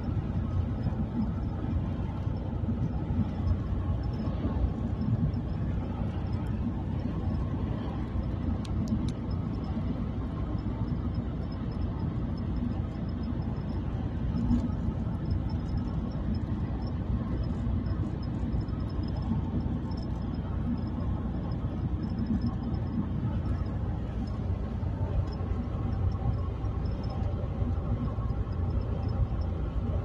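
Steady low rumble of a car driving along a road, engine and tyre noise heard from inside the cabin.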